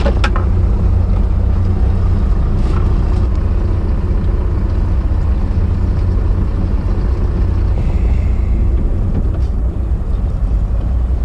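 Fishing boat's engine running steadily, a low even drone, with a few short clicks right at the start.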